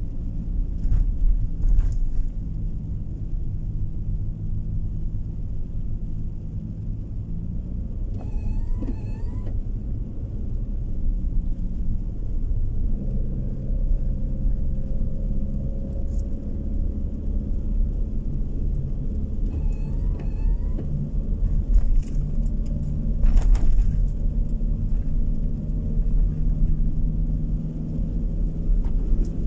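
A car driving along a road, heard from inside: a steady low engine and tyre rumble. Twice there are a few short rising chirps, and about three-quarters of the way in there is a sharp click.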